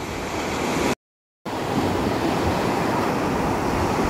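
Surf washing up a sand beach in a steady rush, with wind buffeting the microphone. The sound drops out completely for about half a second, about a second in.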